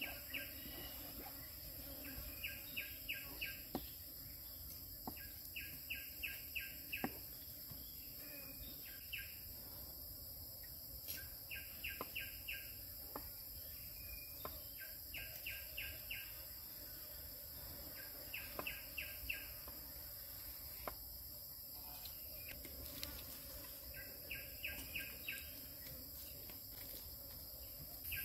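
Forest ambience: a steady high insect drone, with a bird calling in short runs of five or six quick notes every few seconds. There are also a few light knocks.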